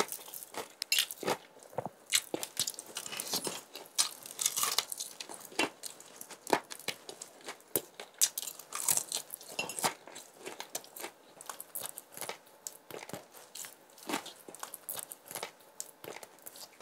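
Close-miked crunching bites and chewing of crispy Kyochon Real Fried chicken: an irregular run of sharp crunches, several a second, between quieter chewing.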